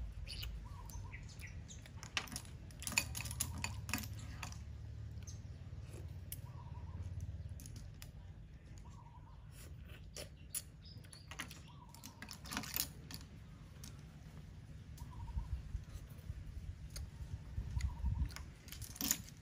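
Scattered light clinks and clicks of a spoon and sea shells against a glass bowl and tabletop as the shellfish are eaten. A bird gives a short call every few seconds over a low steady rumble.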